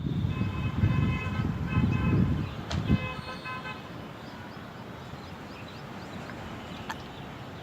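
A horn-like tone of several stacked notes sounding in short, broken stretches for about three and a half seconds, over a low rough noise. After that only a quiet steady background remains, with one click near the end.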